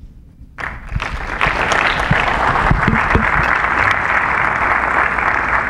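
Audience applauding, starting abruptly about half a second in and holding steady.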